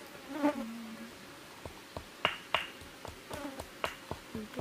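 Scattered sharp, wet clicks and snaps, starting about a second and a half in, as hands pull apart a raw plucked chicken carcass.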